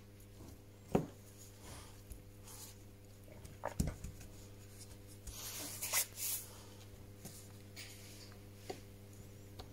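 Gloved hands pressing a battery down into a smartphone frame on a silicone mat: two sharp knocks, about a second in and just before four seconds, a brief rustle of handling around six seconds, and a few light taps, over a steady low hum.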